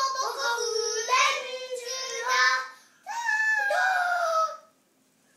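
Two young children singing a song together, ending on a long held note about three seconds in that dips at the end, after which they stop.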